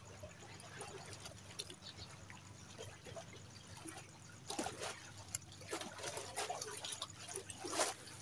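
Faint water lapping and trickling, with irregular light knocks and rustles that grow louder in the second half, the loudest just before the end.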